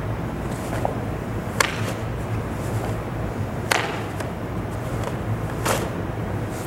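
Karate uniform (gi) cloth snapping sharply three times, about two seconds apart, as strikes and blocks are thrown, over a steady low hum.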